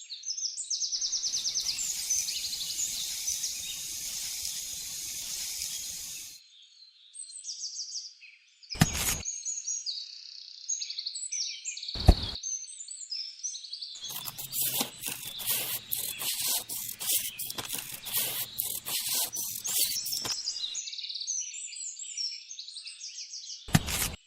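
Small birds chirping repeatedly throughout, broken by two stretches of a harsh rasping noise lasting several seconds each, and a few single sharp clicks.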